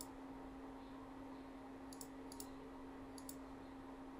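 Computer mouse clicks: one click at the start, then three more between about two and three and a half seconds in, over a faint steady electrical hum.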